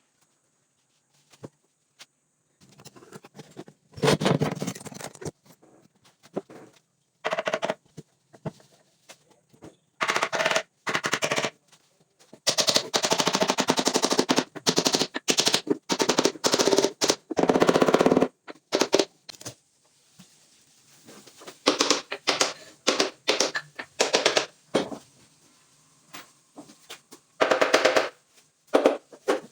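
Power tool driving fasteners into wood: repeated bursts of rapid hammering clicks, each lasting up to about two seconds, with short pauses between.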